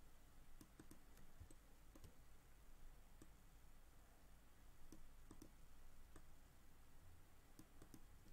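Faint, irregular clicks of a computer mouse, a dozen or so spread across the stretch, over near silence.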